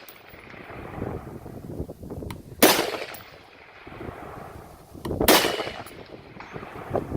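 Two AR-15 rifle shots, about two and a half seconds apart, each a sharp crack with a short echoing tail.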